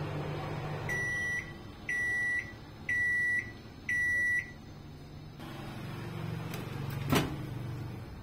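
Convection microwave oven finishing its cycle: the running hum stops about a second in and four beeps about a second apart signal the end of the timer. Near the end a sharp click as the door is opened.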